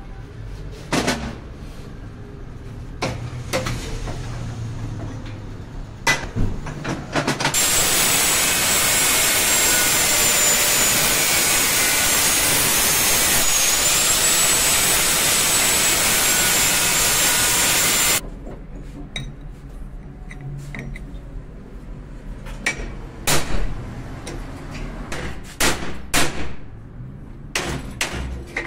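Angle grinder cutting metal with a steady loud hiss and a high whine for about ten seconds in the middle. Before and after it come sharp metal clanks and knocks of hand tools and a hammer on a wheel hub clamped in a vise.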